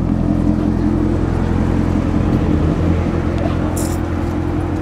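Chevrolet Corvette C7's V8 running steadily at low revs as the car rolls slowly, with a short hiss about four seconds in.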